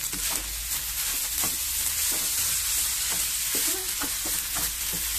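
Fried rice sizzling in a wok as a wooden spatula stirs and scrapes through it, with irregular knocks and scrapes of the spatula against the pan over a steady hiss.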